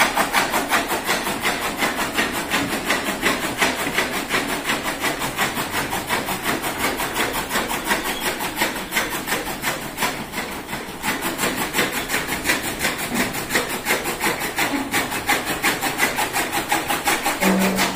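A machine running steadily with a fast, even rasping rhythm of many strokes a second.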